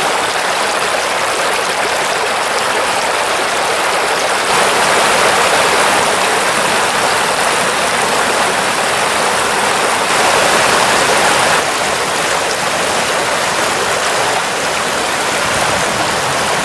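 Water pouring over a shallow stone weir: a steady, loud rushing that jumps slightly in loudness a few times.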